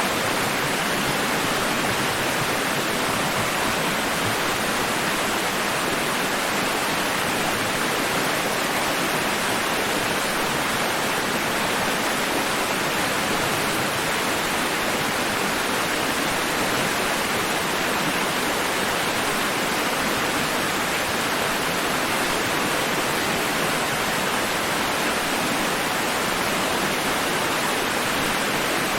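Steady rushing water noise, even throughout, with no rise and fall of separate waves.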